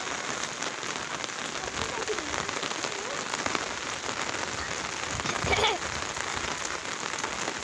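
Heavy downpour falling steadily: a dense hiss of rain with many small raindrop patters. A brief voice-like call rises out of it about five and a half seconds in.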